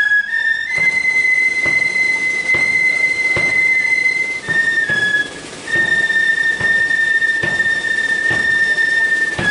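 Flute band playing long held high notes over a drum beating steadily, just under once a second, with the pitch stepping down about halfway through.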